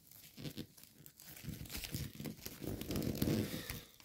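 Gold foil origami paper crinkling and rustling in irregular crackles as hands press and flatten the folded layers of a model. It grows louder about halfway through.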